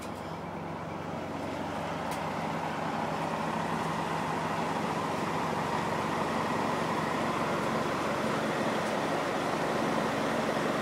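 Kenworth T660 semi-truck's diesel engine idling steadily, the hum growing gradually louder over the first half and then holding steady.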